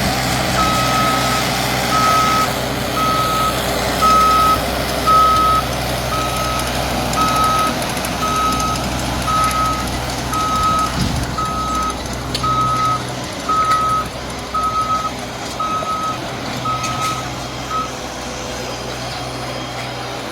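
Skid steer loader's reversing alarm beeping about once a second on one steady pitch over the machine's running engine; the beeping stops near the end.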